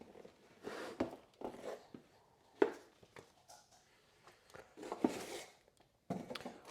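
Faint handling sounds: a few light clicks and knocks, with short soft rustles between them.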